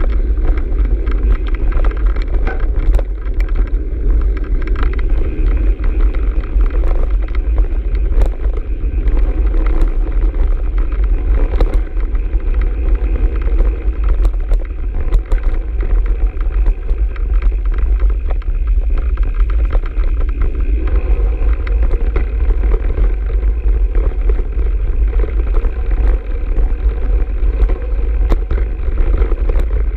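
Mountain bike riding fast over a dirt trail: steady wind rumble on the microphone, with many small rattles and clicks from the bike and camera mount as the tyres run over rough ground.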